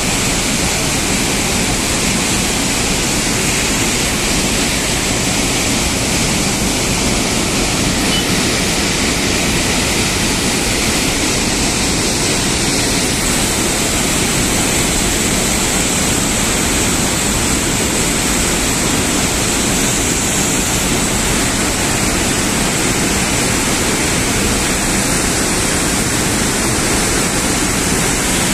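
Water rushing out of a dam's open spillway gates and crashing into the river channel below, a steady, loud, unbroken rush.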